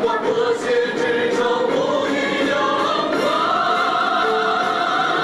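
A song with singing over choir and orchestral backing; about three seconds in a voice holds one long high note with vibrato.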